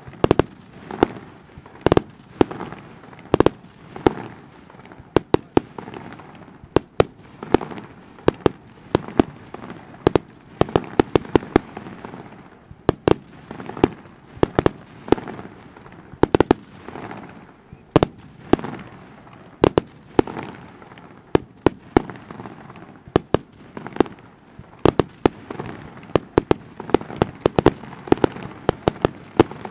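Aerial fireworks shells bursting in a display: a steady run of sharp bangs, often several in quick succession, each followed by a short rumbling tail.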